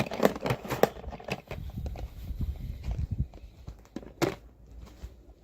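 Toy packaging handled close to the microphone: a quick run of sharp clicks and crackles, then a stretch of low rumbling knocks, and a single sharp tap a little past four seconds.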